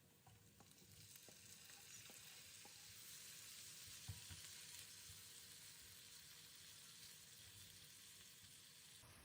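Food frying in a pan: a faint, steady sizzle, with a few light clicks in the first seconds, probably a utensil stirring.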